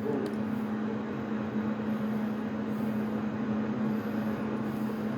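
Radio receiver static heard after the mic is unkeyed: a steady hiss with a low hum underneath, as the operator listens for a reply on an empty channel.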